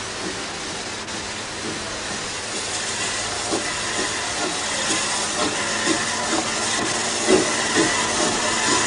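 Narrow-gauge steam locomotive approaching, with a steady hiss of steam that grows gradually louder. From about midway its exhaust chuffs come about twice a second.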